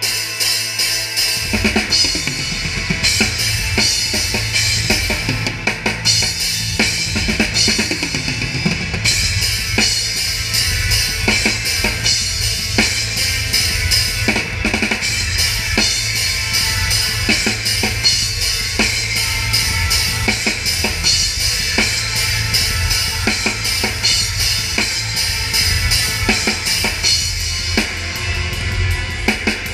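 Rock drum kit played hard from the drummer's seat, starting loud at once: a dense, fast run of bass drum strokes with snare and cymbals, the rest of the metal band playing along.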